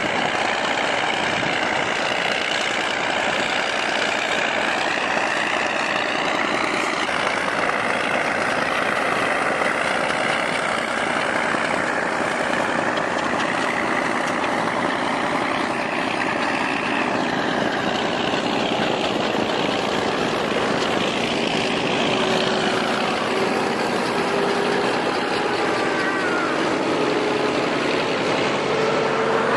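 Heavy vehicle engine running steadily, its pitch slowly drifting up and down.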